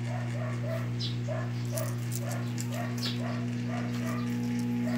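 Small dog whimpering softly in a steady rhythm, about two or three short whines a second, over a steady low electrical hum, with a few faint clicks.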